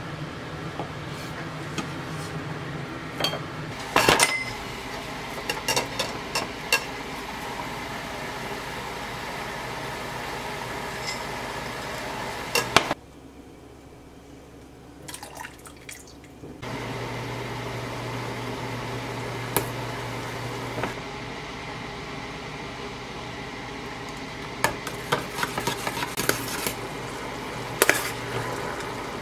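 Kitchen work sounds: sharp taps of a knife slicing a rolled omelette on a plastic cutting board, then clinks of a porcelain bowl and a metal ladle against a stainless saucepan as liquid is stirred, with a cluster of clinks near the end. A steady low hum runs underneath.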